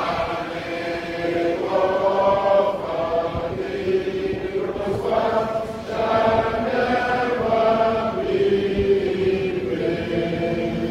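A crowd of many voices singing a chant together in unison, in held phrases of about a second or two each.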